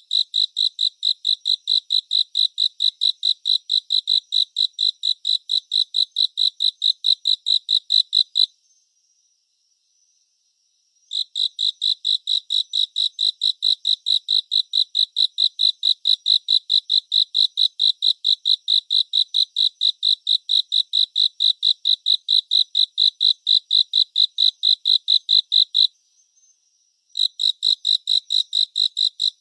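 A cricket chirping close up: a run of evenly spaced, high-pitched pulses at one steady pitch, about five a second, that stops twice for a couple of seconds, about eight seconds in and again near the end.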